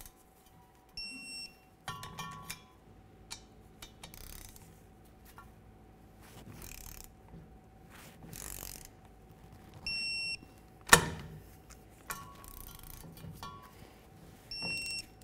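Digital torque wrench giving a short high beep three times as the U-joint strap bolts reach the set 18 ft-lb, with ratchet clicking and tool handling between the beeps. A sharp metal knock comes about eleven seconds in.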